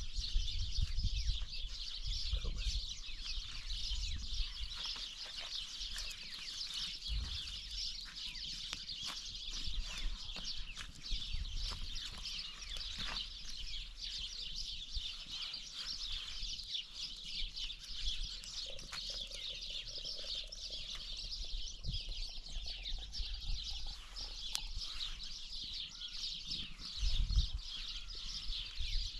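A chorus of many small birds chirping and twittering without a break. There is a low rumble at the start and a short, louder one near the end.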